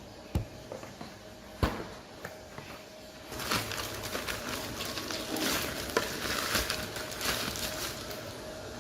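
Unboxing handling sounds: two sharp knocks in the first two seconds, then from about three seconds in a steady crinkly rustle of packaging being handled, with scattered clicks.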